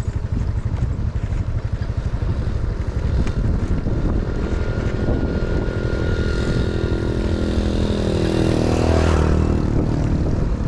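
Motorcycle engine pulling away and accelerating, its pitch rising through the middle of the clip, over heavy wind buffeting on the microphone.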